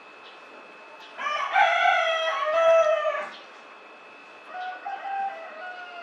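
A rooster crowing once, a loud call of about two seconds, followed near the end by a fainter, shorter crow.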